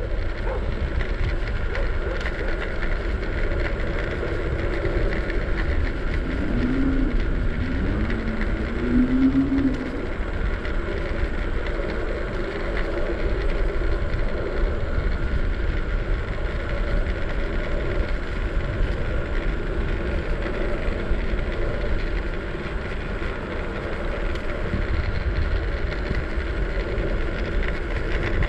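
Segway Ninebot ES4 electric scooter on the move on solid tyres: a steady low rumble of the tyres and road noise, with a short wavering pitched sound about a quarter of the way in.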